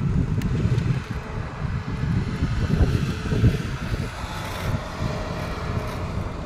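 Wind buffeting the microphone in uneven gusts, over the sound of road traffic; a small truck passes about four seconds in.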